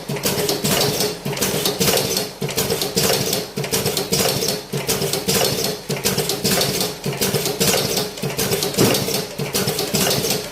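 Cigarette rolling machine running, a rapid continuous clatter of clicks over a steady hum.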